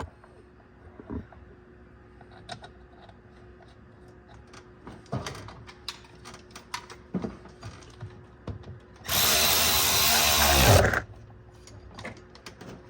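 Light clicks and knocks of tools on metal, then about nine seconds in a cordless impact wrench runs for about two seconds, tightening the steering rack mounting bolt, and stops.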